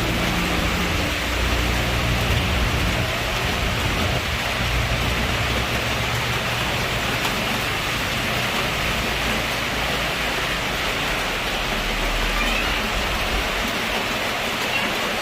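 Heavy rain falling steadily, an even hiss with no let-up. A low rumble sits under it in the first few seconds and again near the end.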